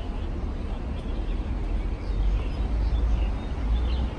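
Outdoor ambience: an uneven low rumble that gets stronger about halfway through, with a few faint bird chirps above it.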